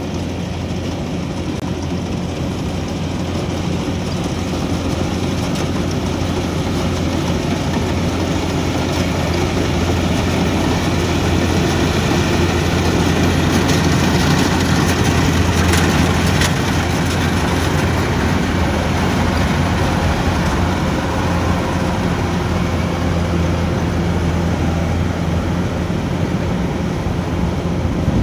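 Tracked rice-cutting machine working, its engine running steadily with a low hum under broad mechanical noise. It grows somewhat louder over the first half, then holds.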